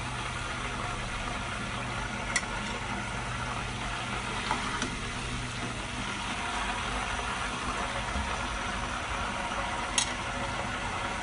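Hot oil sizzling steadily in a wok as half-fried mutton koftas are lifted out with a slotted skimmer, over a steady low hum. Two sharp clicks, about two seconds in and again near the end, as the skimmer knocks against the pan or plate.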